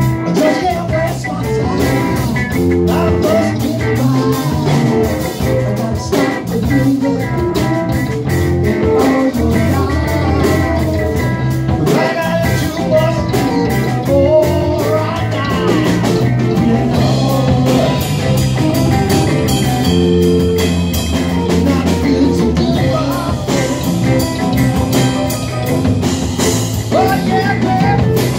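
Live rock band playing: electric guitars, bass guitar and drum kit, with a male lead vocal sung into a microphone.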